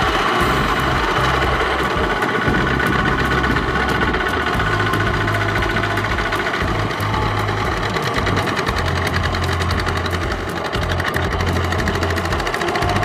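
Kubota hand tractors' single-cylinder diesel engines running steadily as the machines work through a flooded rice paddy, with a rapid knocking beat.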